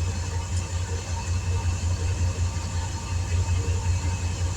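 A motor running steadily with a low, rapidly pulsing hum, like an engine-driven machine at idle.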